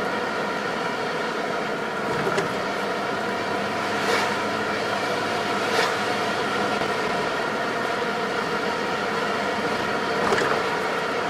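Car cabin noise while driving: steady road and tyre noise with a steady hum. Brief thumps come about two, four, six and ten seconds in.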